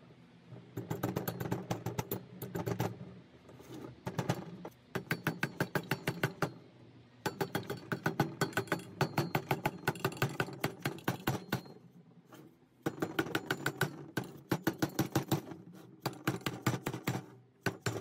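Rubber mallet tapping rapidly on the aluminium rocker box of a 1969 Harley-Davidson shovelhead cylinder head, driving the tight-fitting box down onto its gasketed head. The blows come in quick runs of several taps a second, with short pauses between runs.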